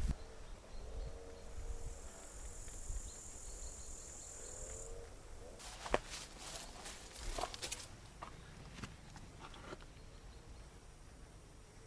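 Quiet outdoor ambience: an insect trills steadily at a high pitch for about three seconds, then a few scattered sharp clicks follow.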